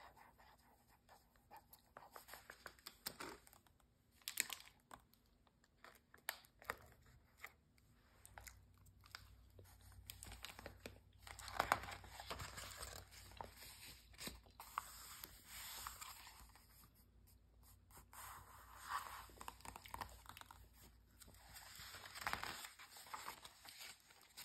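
Soft handling of a glossy magazine: long acrylic nails tap and scratch on the coated paper with many light clicks, while a page is turned with a crinkling paper rustle.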